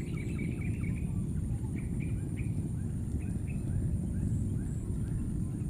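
Repeated short, high chirps and squeaks from a small animal, one or two a second, over a steady low rumble.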